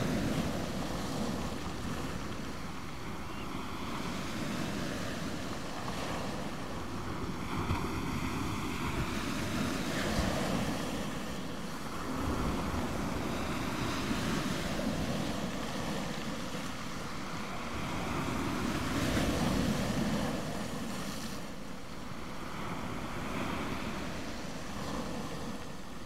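Small waves breaking on a shingle beach and washing back through the pebbles, swelling every few seconds over a steady rush of surf.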